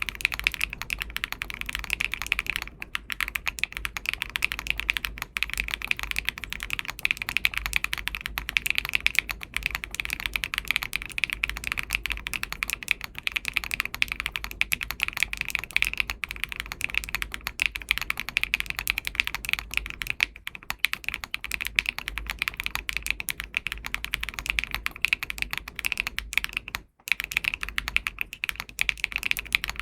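Continuous fast typing on a Dimple r3 40% custom mechanical keyboard with Wingtree Anon switches, aluminium plate, plate and case foam, and MW Fuyu keycaps: a dense stream of key presses with a brief pause about 27 seconds in.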